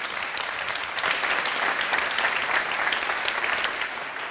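Audience applauding at the end of a talk, many hands clapping together; the clapping grows louder about a second in and eases slightly near the end.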